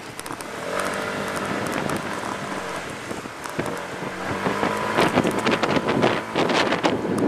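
Vehicle engine pulling away from a traffic light and speeding up; it gets louder about a second in. Wind buffets the microphone in repeated gusts near the end.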